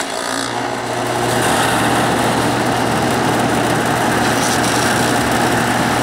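Air conditioner condenser unit switching on, fitted with a new fan motor and run capacitor: a steady low electrical hum and the rush of the condenser fan spinning up over about a second and a half, then running steadily.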